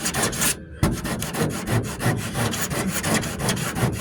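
Coarse 40-grit abrasive worked back and forth by hand over half-set fibreglass (cat hair) body filler on a truck door, shaping it before it hardens. Quick, even scraping strokes, several a second, with a brief pause just under a second in.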